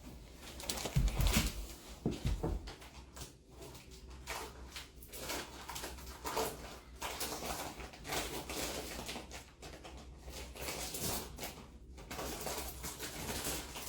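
Irregular rustling and handling of plastic vacuum-storage bags, with a few low thumps between about one and two and a half seconds in.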